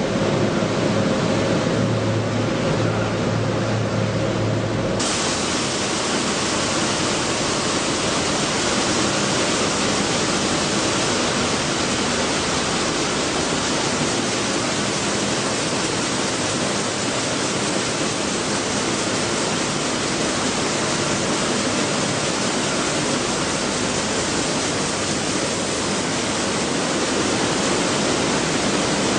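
Wheat flour mill machinery running: a steady, dense rushing noise. A low hum with steady tones shifts abruptly to a brighter, even hiss about five seconds in.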